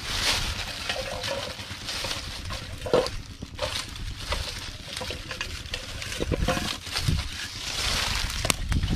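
Hands rummaging through dry leaves and sticks and into shallow paddy water: rustling and crackling with small sloshes of water and a few sharp snaps, over wind rumbling on the microphone.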